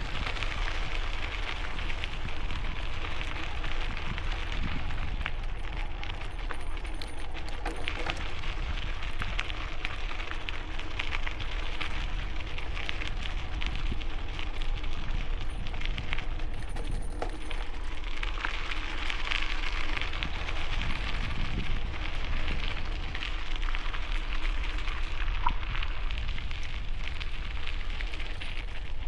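Bicycle tyres crunching over gravel in a continuous dense crackle, with a steady low wind rumble on the helmet-mounted microphone.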